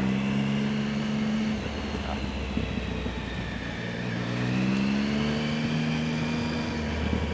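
2008 Triumph Speed Triple's three-cylinder engine pulling under way: its note rises as it accelerates, falls away about two seconds in, then rises again about four seconds in and holds.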